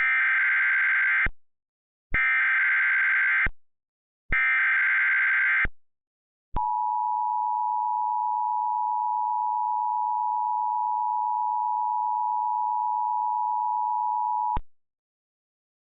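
Emergency Alert System tones opening a tornado warning: three short bursts of SAME digital header data, each a little over a second long with a second's pause between them, then the two-tone EAS attention signal, a steady tone held for about eight seconds before it cuts off.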